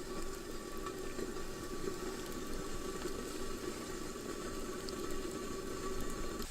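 Water boiling in a pot, a steady bubbling rush.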